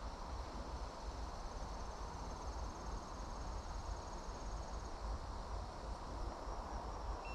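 An insect's rapid, high-pitched pulsed trill from about a second in until about five seconds in, over a steady low rumble and hiss of wind on the microphone.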